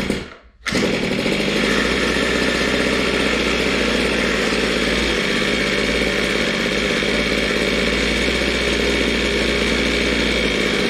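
Zenoah G23LH two-stroke engine with a high-compression head catches on a pull start within the first second and keeps running steadily at a raised idle, its idle air screw turned up. This is the engine's first run after the swap onto the mini bike.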